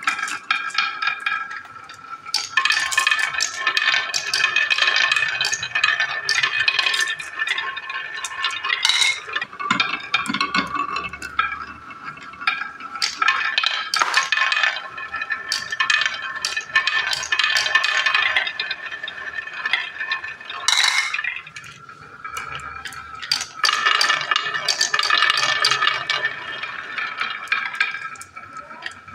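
Marbles rolling and clattering in quick succession along a wavy wooden marble-run track, a dense run of clicks and rattles. It eases off twice, about ten and twenty-one seconds in, between batches.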